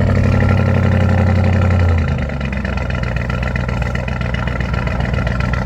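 Audi SQ7's 4.0-litre twin-turbo V8 at its raised idle just after a cold start. About two seconds in, the revs drop and it settles into a lower, quieter, steady idle.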